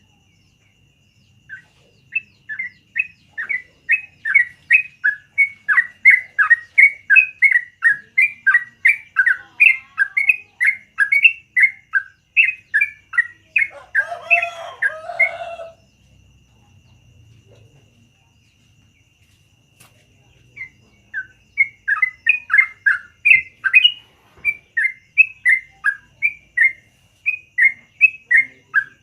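Yellow-vented bulbul (trucukan) singing a long, fast run of short chirping notes, about three a second. A lower, harsher call breaks in about halfway, the song stops for a few seconds, then resumes in another quick run.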